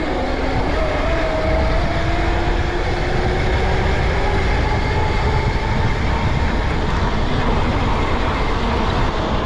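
72-volt electric Razor dirt bike riding along, its motor whining in a thin tone that rises slowly as it gathers speed over the first few seconds, then holds steady. Heavy wind rush and rumble on the microphone sit under it throughout.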